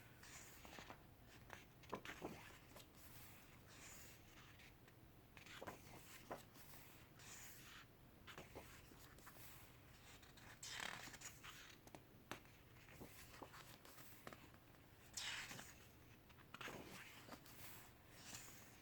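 Faint paper swishes as the pages of a photo essay book are turned one by one, a soft brush every second or few, the strongest about 11 and 15 seconds in.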